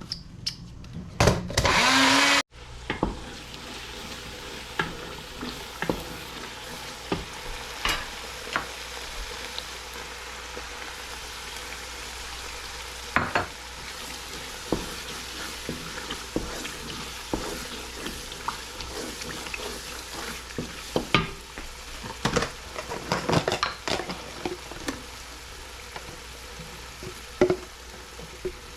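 Chopped ginger, garlic, celery and habanero pepper sizzling in hot oil in a pot, with a spatula stirring and scraping against the pot in scattered clicks. A loud rush of sizzle about a second in cuts off sharply a second later.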